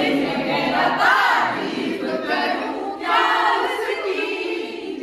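A group of people singing together, many voices at once.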